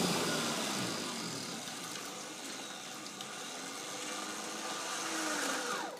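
Off-road vehicle engine running, with a steady rushing noise over it and faint rising and falling engine pitch; the sound drops away abruptly just before the end.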